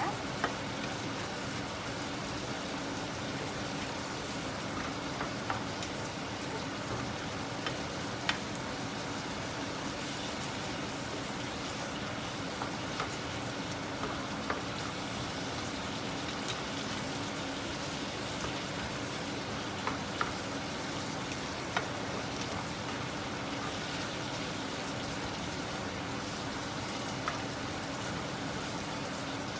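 Minced pork and sauce sizzling steadily in a wok as the stir-fry cooks through, with scattered sharp clicks and pops.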